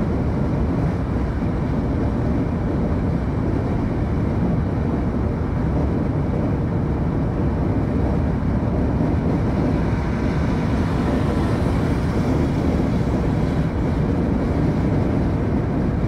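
Steady road and engine noise of a moving vehicle heard from inside the cab, a low, even rumble with no sudden changes.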